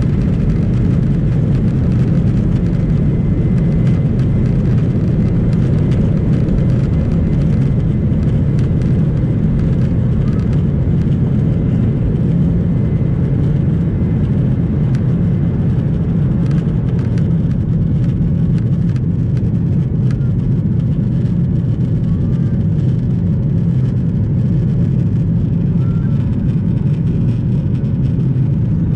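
Boeing 737-900ER's CFM56-7B turbofan engines at takeoff thrust, heard inside the cabin from a seat over the wing: a loud, steady low rumble as the airliner rolls down the runway, lifts off and climbs, with faint ticks and rattles around the middle.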